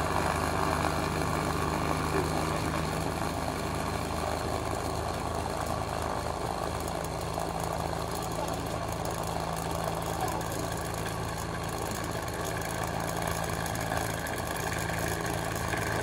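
Tabletop cotton candy machine running with a steady motor hum and whir as its heated spinner head throws out sugar floss.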